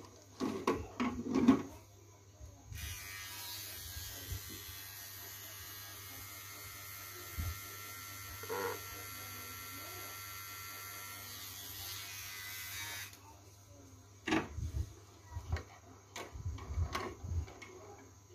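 A cordless electric barber trimmer switches on about three seconds in, runs steadily for about ten seconds, then stops. Short knocks and clicks of the tools being handled come before and after it.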